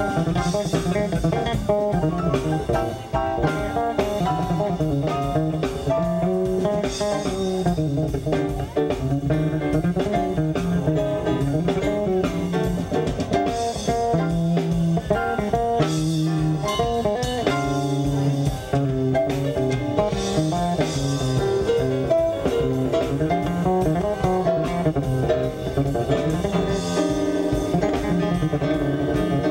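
A live blues band playing, with an electric bass line moving under drum kit and cymbals.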